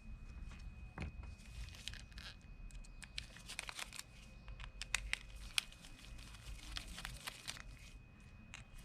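Irregular small clicks and scraping of metal parts being handled while a fishing reel seized by saltwater corrosion is taken apart, with two sharper ticks about five seconds in.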